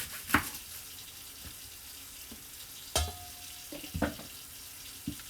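Kitchen handling sounds while onion and celery are prepared: a sharp knock just after the start, a clink with a brief ringing tone about three seconds in, and a couple of lighter taps, over a steady low hiss.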